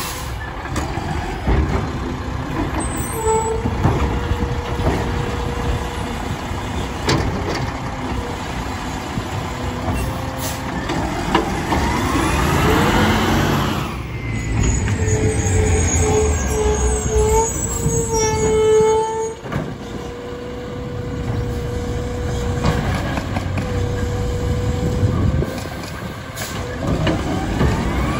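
Mack LR side-loader garbage truck with a Labrie Automizer body: the engine running under a steady whine that comes and goes as the hydraulics work, with the pitch rising near the middle as the truck speeds up.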